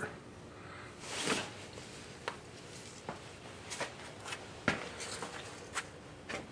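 A handful of light clicks and knocks from handling tools or parts, spread out over several seconds, with a soft swish about a second in.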